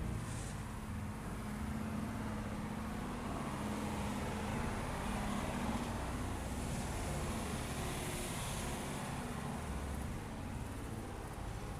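Steady background rumble and hiss, with a low hum in the first half.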